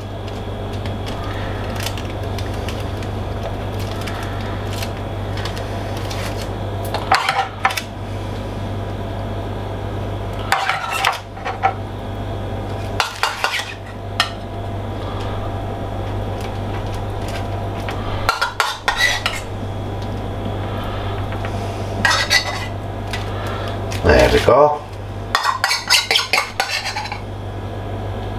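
A metal spoon clinking and scraping against a small ceramic bowl in half a dozen short runs, busiest near the end, as garlic-and-chilli oil is scooped out and spread over baguette slices. A steady low hum runs underneath.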